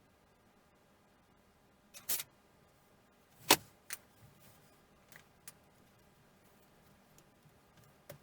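A few sharp clicks and knocks of small hard parts being handled: a short rattle about two seconds in, a loud knock a second and a half later with a smaller one just after it, then a few faint ticks.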